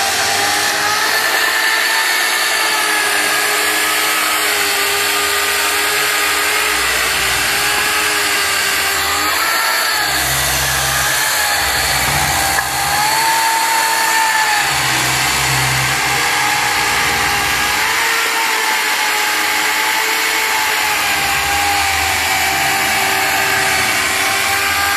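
Mafell ZSX timber-working power tool running continuously, its motor whine wavering slightly up and down in pitch, with some lower rumbling coming and going in the middle.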